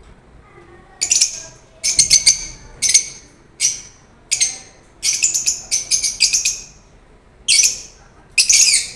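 Lovebirds calling with shrill, high-pitched chirps that come in short bursts about a second apart, with a longer run of rapid chattering calls between about five and six and a half seconds in.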